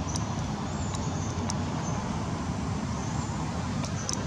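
Steady low outdoor rumble with no clear single source, with a few faint, short high chirps over it.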